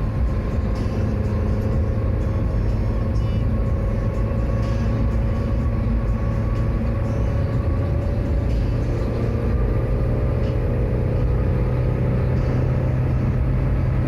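Road noise inside a moving car on a highway: a steady low rumble of tyres and engine, with a faint steady hum.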